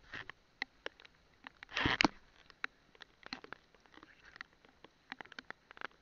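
Heavy rain, heard as scattered sharp taps of raindrops hitting close to the microphone, with a louder brief rush of noise about two seconds in.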